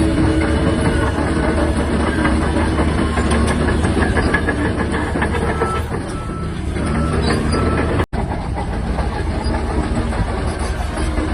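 Shantui DH17-C3 bulldozer running, its engine a steady low drone under the clanking clatter of its steel crawler tracks, with a few brief squeaks. The sound cuts out for a split second about eight seconds in.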